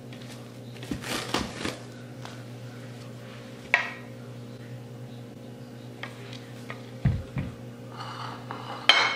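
Kitchen handling noises: plastic wrap rustling as it comes off a plastic mixing bowl, and a rubber spatula and utensils clicking and knocking against the bowl and countertop. The knocks are scattered, with two low thumps about seven seconds in and a sharper click near the end.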